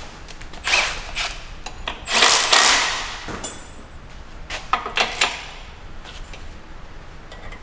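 Metal hand-tool work on a BMW N63TU V8 while its camshaft timing tool is bolted in place: scattered sharp clicks, a scraping rustle about two seconds in, then a few quick clicks around five seconds.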